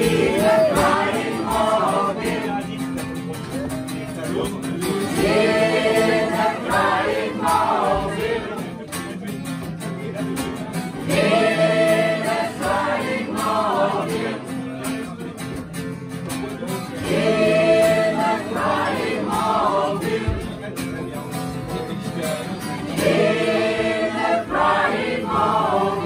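A choir of mostly women's voices singing together to a strummed acoustic guitar, the loudest sung phrases coming back about every six seconds.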